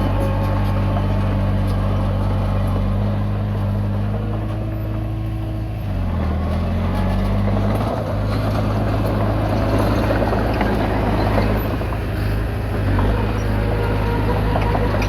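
Komatsu D20P bulldozer's diesel engine running steadily while it works, its pitch dipping briefly about six seconds in before picking back up, with a rougher, noisier stretch after that.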